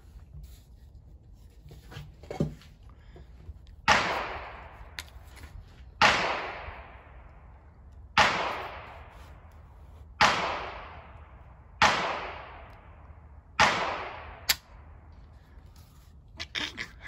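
Six rifle shots about two seconds apart, each with a decaying echo. There are fainter sharp clicks between them, one a couple of seconds in and one after the last shot.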